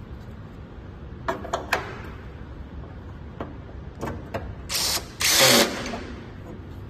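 Red cordless drill-driver running in two short bursts about half a second apart, driving a screw into the cabinet's metal frame. A few light clicks and knocks of handling come before it.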